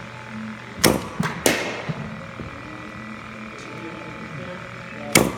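Baseball batting-cage hitting: sharp cracks of a bat meeting pitched balls, two about a second in and another near the end, over a steady hum.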